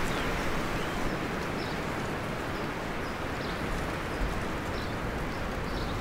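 Outdoor ambience: a steady background hiss with a few short, high bird chirps scattered through it.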